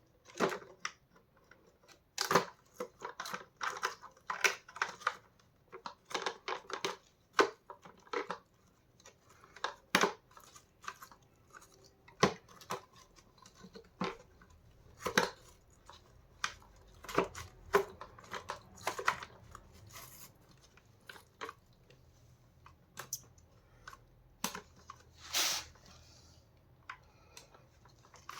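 Vacuum cleaner brush bar and housing parts being handled and fitted back together: irregular clicks and knocks, with a few short rattling scrapes.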